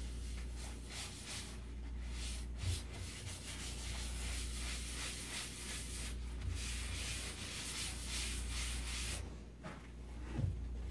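A cloth rubbing over the surface of a cherry-burl-and-epoxy egg on a wood lathe, a soft hissing swish that comes and goes with the strokes and is strongest midway, over a steady low hum.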